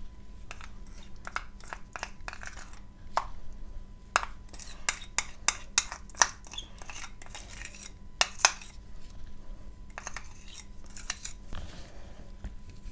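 A utensil clicking and tapping irregularly against containers, with short bouts of scraping, while thick chalk-and-clay paste is scooped and worked. The loudest clicks come around the middle and again a little later.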